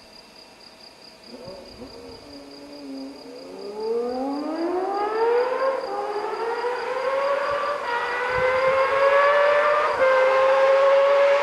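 Honda inline-six motorcycle engine accelerating hard as a high wail that climbs in pitch. It breaks off at each upshift, about halfway through and again near the end, then climbs again, growing steadily louder.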